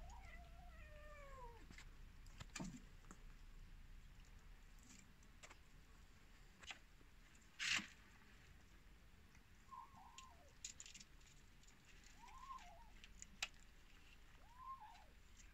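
Cats meowing faintly: one long meow falling in pitch at the start, then three short, higher mews in the second half. A few sharp clicks are scattered through, the loudest about eight seconds in.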